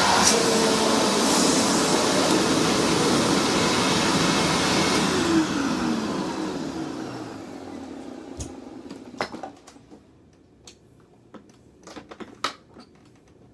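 Freshly rebuilt Hoover WindTunnel upright vacuum running loudly, then switched off about five seconds in, its motor winding down in a falling whine over two or three seconds. A few light clicks and knocks follow.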